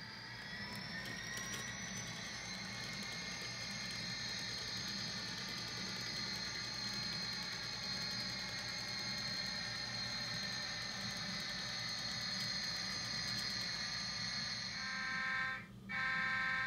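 HO-scale sound-equipped diesel locomotive running under load, its engine hum steady with a whine that rises over the first couple of seconds and then holds. Near the end the horn sounds twice, in two short blasts that are the loudest part.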